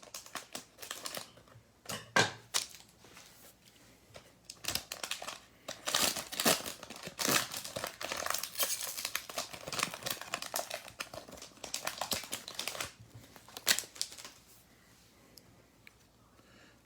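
Plastic trading-card pack wrapper being crinkled and torn open by hand: irregular crackles, busiest in the middle, that die away near the end.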